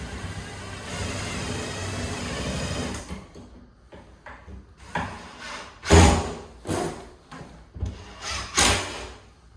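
Cordless drill running steadily for about three seconds, then stopping. It is followed by a run of separate knocks and clatters, the loudest about six seconds in.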